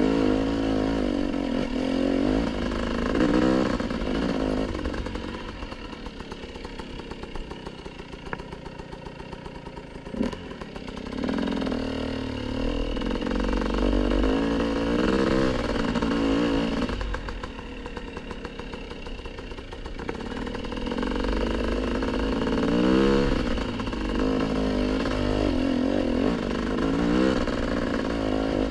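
Dirt bike engine under way, its revs rising and falling with the throttle. For several seconds in the middle it drops to a quieter, low-revving putter, then picks up again.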